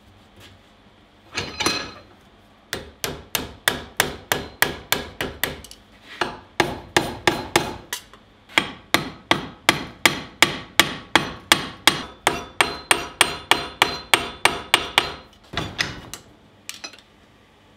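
Hand hammer striking a red-hot steel bar clamped in a bench vise, bending it over the vise jaw: one blow, then a long run of quick, even blows about three a second with a couple of short breaks, each with a metallic ring.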